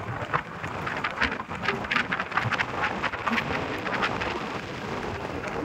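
Kathiyawadi horse's hooves clattering on an asphalt road at the fast ambling revaal gait, a quick uneven run of sharp clicks, over rumbling wind noise on the microphone.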